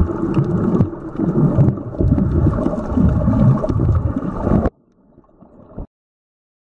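Muffled rumbling and sloshing of water heard underwater through a camera's housing, surging unevenly. It cuts off suddenly a little over halfway in, leaving a faint hiss for about a second, then silence.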